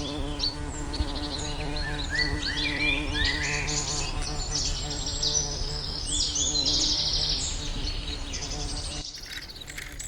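Several birds singing, a dense mix of short chirps and whistled phrases, over a steady low buzzing hum. About nine seconds in, the sound drops abruptly and the birdsong carries on more faintly.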